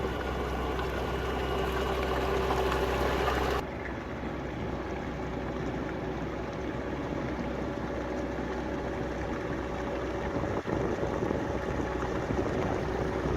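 Tracked compact loader running steadily, engine and hydraulic pump together with a held whine. The sound changes abruptly about three and a half seconds in, and there is a single sharp knock about ten seconds in.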